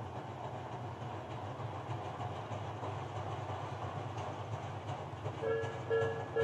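Low, steady rumble of an approaching rail maintenance vehicle. About a second before the end, a Japanese level-crossing warning bell starts ringing, about two dings a second.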